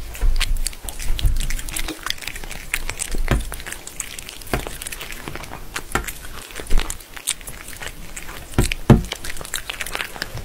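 Cats biting and chewing small treats off a glass pane: irregular crunchy clicks and smacks of teeth and tongue.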